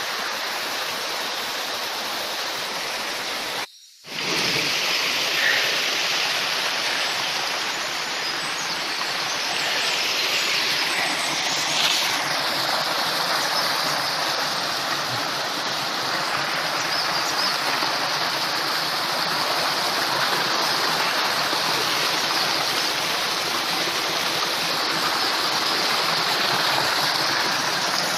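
Mountain creek cascading over boulders in small falls, a steady rushing of water. The sound cuts out briefly about four seconds in, then comes back a little louder.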